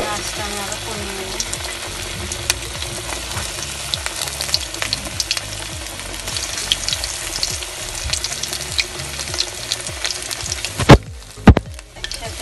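Chicken-stuffed, breadcrumb-coated okra deep-frying in hot oil in a kadai: a steady sizzle with constant crackling and small pops as pieces are laid into the oil. Two loud sharp knocks close together near the end.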